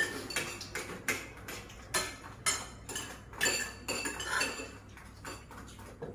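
Spoons and forks clinking and scraping on plates and bowls as several people eat: irregular sharp clinks, about two a second, some ringing briefly.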